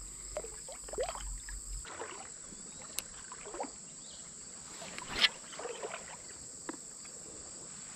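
Steady high-pitched trill of crickets. Over it come scattered soft knocks and swishes from people moving at the water's edge, the clearest about five seconds in.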